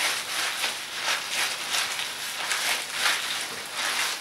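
Wet squishing of fingers massaging hair-dye cream through wet hair and scalp, in quick repeated strokes about two to three a second. This is the massaging that loosens the colour from the roots and lengths before rinsing.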